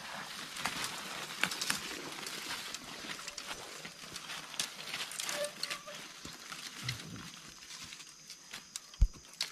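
Irregular crackling and snapping of dry leaves and twigs in forest undergrowth, with a single dull thump near the end.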